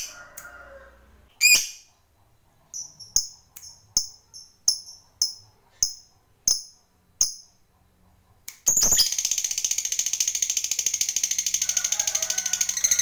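Lovebird calling: a loud shrill chirp, then a string of short sharp high chirps, nearly two a second, then from about two-thirds in a long, loud, rapid chattering trill, the lovebird's 'ngekek' song, that keeps going.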